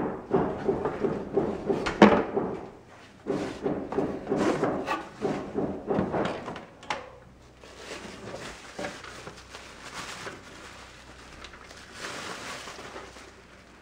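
Cardboard box being opened by hand: lid scraping and flaps knocking over the first several seconds, with one sharp knock about two seconds in. After that comes quieter crinkling of a plastic bubble-wrap bag being lifted out of the box.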